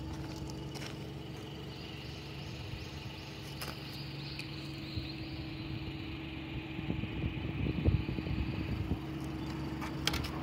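Honda Today RS kei car's small three-cylinder engine idling steadily at the tailpipe. A brief low rumble comes about eight seconds in.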